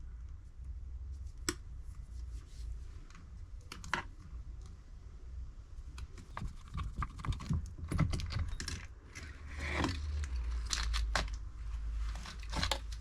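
Irregular clicks, taps and short rustles of small parts, wires and plastic being handled and worked by hand, over a steady low hum.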